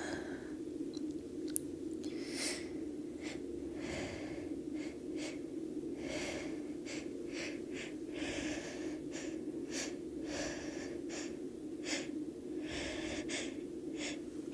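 A woman's series of short sniffs and breaths, many in quick irregular succession, as she builds up toward a sneeze. A steady low hum runs underneath.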